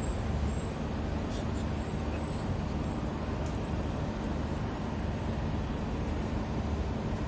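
Steady low hum and whir of a crowded prayer hall's many electric ceiling and wall fans, with faint scattered ticks and rustles from the standing congregation.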